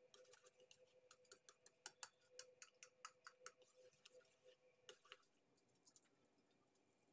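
Faint clinking of a utensil against a stainless steel bowl while stirring thick banana pancake batter: a quick, uneven run of ticks that dies away after about five seconds, over a faint steady hum.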